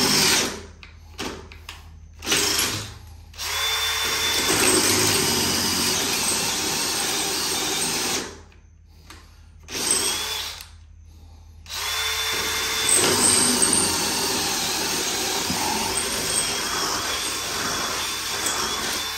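DeWalt cordless drill boring out a broken-off bolt: a couple of short trigger bursts, then two long runs of about five and seven seconds as the bit cuts through the metal, with a brief burst between them.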